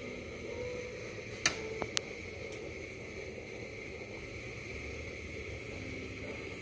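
Steady hiss with a faint high whine from a stove as naan dough cooks on a dry cast-iron pan. A sharp click comes about a second and a half in, and two lighter clicks follow within half a second.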